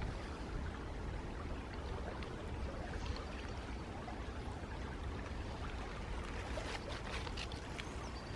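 Steady rush and trickle of a small woodland stream.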